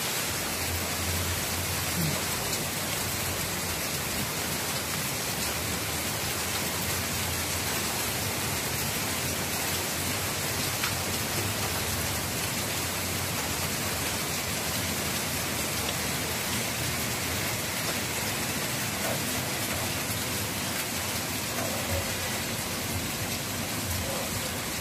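Steady rain falling on surfaces, an even hiss with no breaks.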